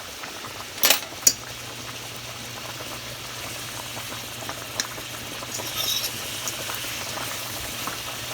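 Shrimp frying in oil in a pan, a steady sizzle, with a utensil knocking against the pan twice about a second in and lightly a few times later as the shrimp are stirred with their seasonings.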